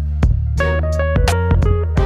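Background music: a plucked, guitar-like melody of short notes over a held bass, with a few sharp drum hits.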